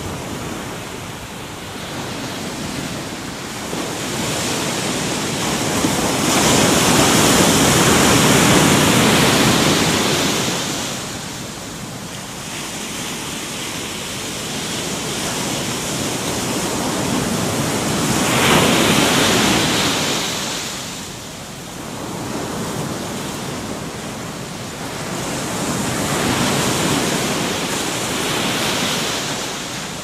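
Surf: waves breaking and washing up a beach, the rush swelling and ebbing in three surges about ten seconds apart.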